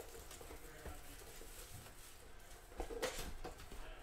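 Faint rustling and scraping of a cardboard trading-card box and its card packs being handled, with a short louder burst of rustling about three seconds in.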